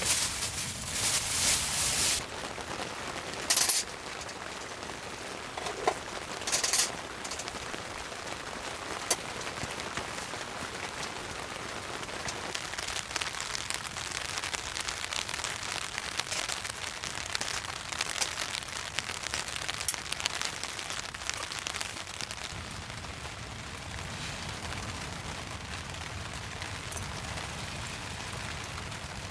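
Rain falling steadily, a dense patter of drops, with a few loud short rustling bursts in the first seven seconds.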